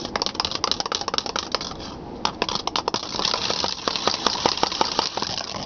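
A cat toy ball being swirled fast by hand, making a rapid, irregular clatter of small clicks and rattles.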